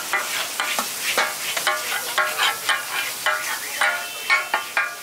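Flat metal spatula striking and scraping a large flat griddle (tawa) about twice a second, each stroke ringing like struck metal. Food sizzles and fries in oil underneath.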